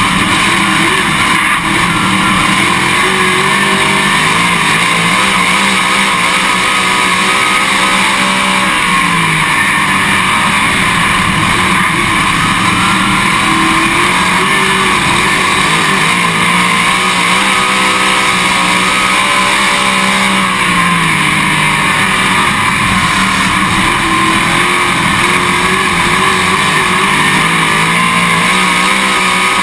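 Dirt late model race car's V8 engine running hard at racing speed, filling the sound on the car. Its note dips and climbs back about every twelve seconds.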